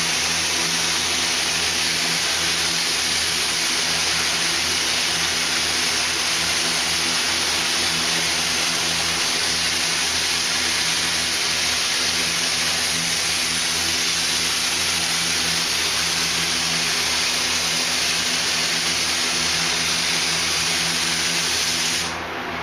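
Paint spray gun hissing steadily as it lays down the first coat of clearcoat, cutting off abruptly near the end when the trigger is released. A steady low machine hum runs underneath.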